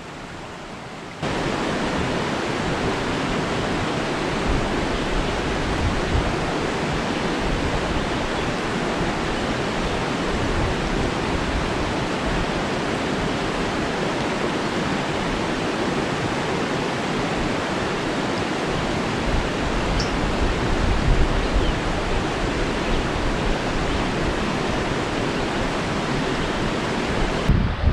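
Shallow mountain trout stream running over rocks, a steady rush of water close by that becomes suddenly louder about a second in.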